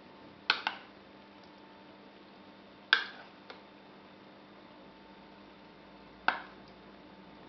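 A metal spoon clinking against the rim of a bowl three times, the first a quick double, each with a short ring, as sauce is scooped and knocked off the spoon.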